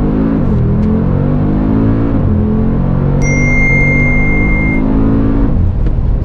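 Mercedes-AMG G63's twin-turbo V8 accelerating at full throttle, heard from inside the cabin: the pitch climbs and drops back sharply at each upshift, about a third of a second in and again about two seconds in, then falls once more near the end. A steady high beep sounds for about a second and a half midway.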